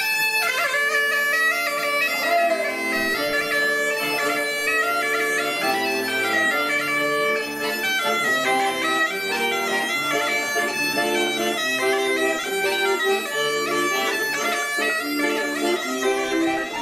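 Reed wind instruments playing a tune, the notes changing quickly, with several parts sounding together.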